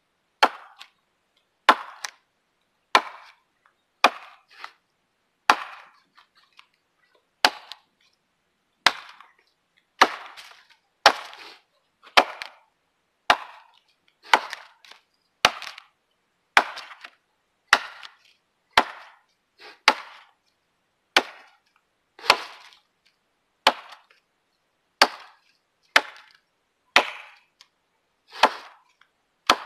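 Husqvarna 26-inch multi-purpose axe chopping a felling notch into a standing tree trunk: sharp blows of steel into wood in a steady rhythm, about one every second and a bit, some followed by a fainter second knock.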